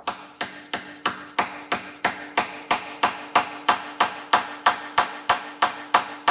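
Hammer blows on metal in a steady run, about three a second, driving a new pin into a 1965 VW Beetle's pedal cluster, with a faint steady ring under the strikes.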